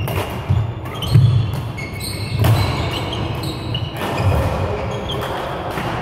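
Badminton doubles rally: sharp racket strikes on the shuttlecock, players' footfalls thudding on the court floor about once a second, and short high shoe squeaks.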